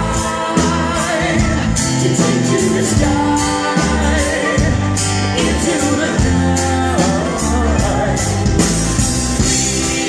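Live country band playing, with acoustic guitar, mandolin, electric guitar, keyboards and a steady drum beat, while a man and a woman sing together.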